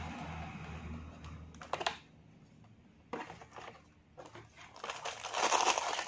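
Hands opening a cardboard box: scattered light clicks and taps of the cardboard, then rustling and crinkling packaging from about five seconds in.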